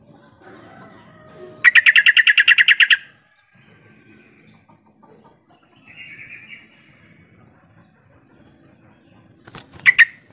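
Yellow-vented bulbul calling: a loud, fast run of about a dozen identical chirps lasting just over a second, then a softer chirp about six seconds in, and a couple of sharp, loud notes near the end.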